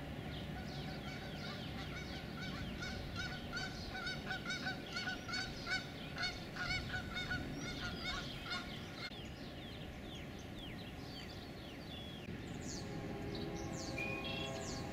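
Geese honking in a rapid, dense series of calls that starts about two seconds in and stops about nine seconds in. Small birds chirp near the end, over a steady low background rumble.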